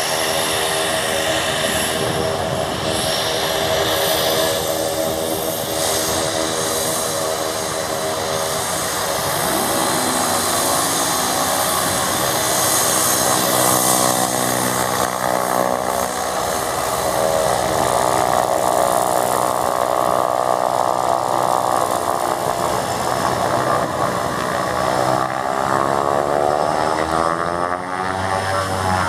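Cessna 208B Grand Caravan EX single-engine turboprop (Pratt & Whitney PT6A-140) taxiing: a steady propeller drone with a high turbine whine above it. Its pitch bends in the last few seconds as the aircraft turns away.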